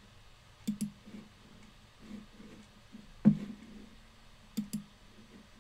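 Computer mouse clicking: a quick pair of clicks about a second in and another pair near the end, with a louder single thump a little after three seconds.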